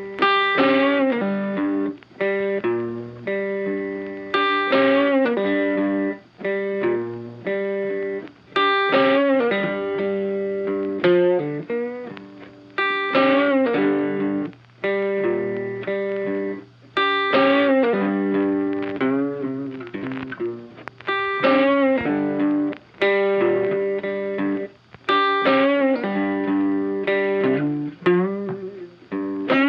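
Background music: a plucked guitar playing a repeating phrase, with a new strong note about every four seconds that rings and fades.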